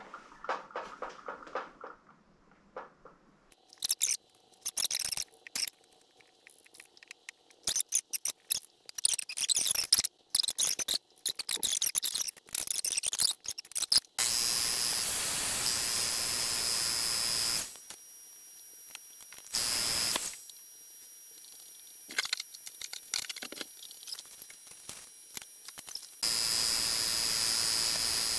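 Clicks and knocks of parts and tools being handled, then a portable high-pressure PCP air compressor runs with a steady noisy hiss and high whine as it fills the air rifle, louder in short stretches and again near the end.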